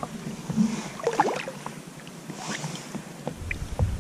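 Water lapping and small splashes around a float tube, with scattered light clicks. Low wind rumble on the microphone comes back strongly near the end.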